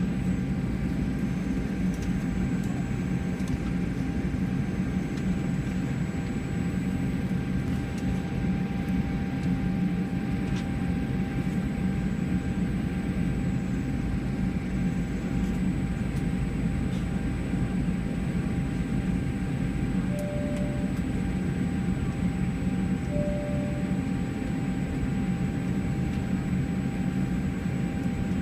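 Steady cabin noise inside a taxiing Boeing 787 Dreamliner: a low rumble from the engines and air system with a faint steady whine above it. About two-thirds of the way through come two short, identical beeps about three seconds apart.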